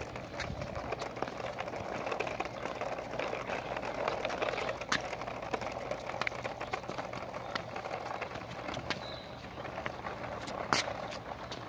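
Small 12-volt DC motors of a model locomotive whirring steadily as its wheels roll over paved ground, with scattered clicks and rattles and one sharper click near the end.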